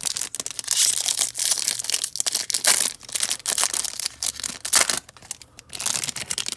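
Crinkling and tearing of a foil trading-card pack wrapper being ripped open and handled, a loud irregular crackle that pauses briefly a little after halfway.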